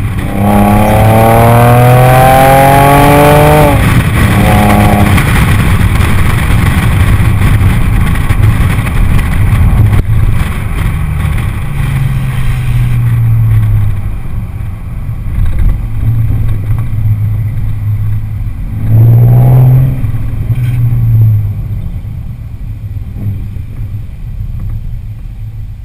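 Exhaust of a 2006 Audi A6 3.2 Quattro's V6 with the mufflers removed (cats and resonators kept), heard through a waterproof camera housing while driving. It climbs in pitch under acceleration for the first four seconds, breaks off, runs steady, pulls again briefly about three quarters through, then eases off near the end.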